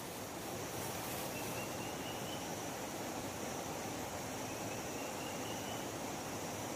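Steady forest ambience: an even noise haze with a thin, high, steady insect drone and two faint rising calls, one about a second in and one near the end.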